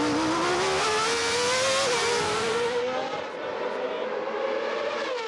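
Formula 1 car engine at high revs, its note climbing steadily with a brief drop in pitch about two seconds in, climbing again, then holding steadier and slowly fading.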